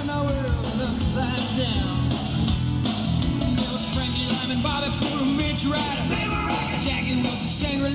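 Loud music with singing and heavy bass played through a party bus's outdoor speaker stacks.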